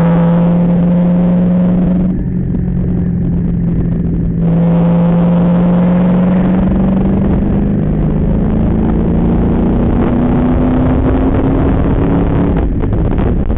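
Ford Mustang's engine heard from inside the cabin, under hard throttle on a track lap. The note climbs slowly in pitch, eases off for a couple of seconds about two seconds in, then comes back and climbs again. It drops away near the end as the throttle is lifted.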